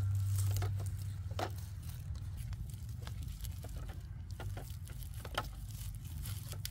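Cut sugarcane stalks knocking against each other and dry leaves crackling as they are handled and gathered into a bundle, a few scattered knocks about a second apart, over a steady low rumble.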